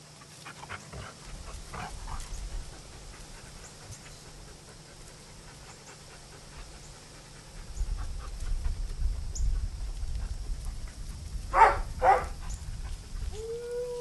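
Inuit sled dogs: two short barks about half a second apart, then near the end one dog begins a long, steady howl, over a low rumble on the microphone.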